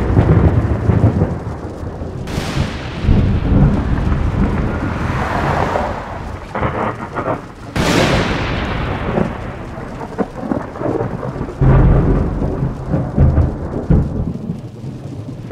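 Thunder: several sudden cracks, each trailing off into long low rumbling, over the steady hiss of rain.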